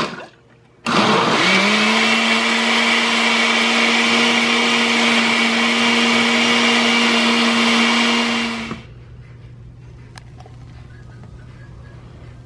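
Oster countertop blender blending milk and bananas into a drink. After a brief burst at the start, the motor spins up quickly, runs at a steady speed for about eight seconds, then switches off.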